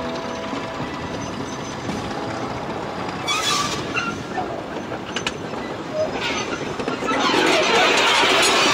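A slow-moving train of a diesel locomotive and the SAR 520 class streamlined steam locomotive 523 rolling along the track: steel wheels on rail with a few clicks and short wheel squeals. It gets louder about seven seconds in as the locomotive draws near.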